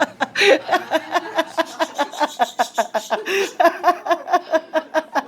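Amazon parrot imitating human laughter: a long, even run of short 'ha' syllables, about three or four a second.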